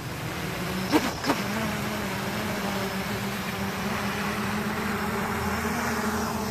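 A homemade quadcopter's motors and carbon-fibre propellers spinning up about a second in, then running as a steady buzzing drone whose pitch creeps slightly upward.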